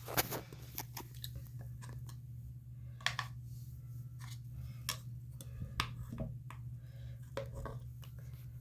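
Hand soap being dispensed into a container for slime: scattered small clicks and squishy wet sounds over a steady low hum.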